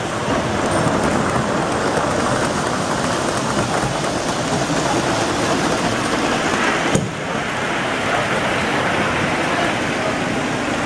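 Model freight train rolling along the layout's track, its wheels making a steady rushing rumble. A sharp click sounds about seven seconds in, and the sound is a little quieter afterwards.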